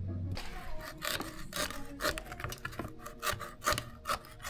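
Small hand blade sawing through a black silicone hose laid on a wooden board, in rasping strokes about two a second.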